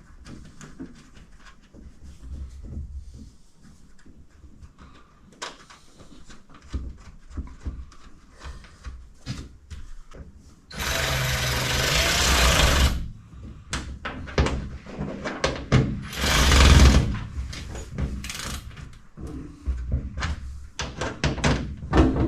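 Scattered clicks and knocks of hand work, with two loud bursts of a power tool: one about two seconds long near the middle, a shorter one about five seconds later.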